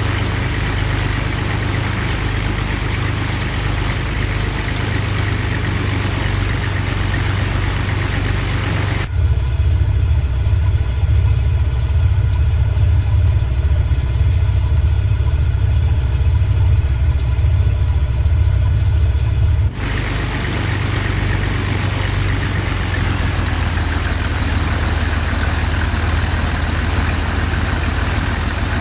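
Cessna Stationair amphibious plane's piston engine and propeller droning steadily. From about nine seconds in to about twenty, the sound turns abruptly duller and deeper with a low throbbing, then switches back just as suddenly.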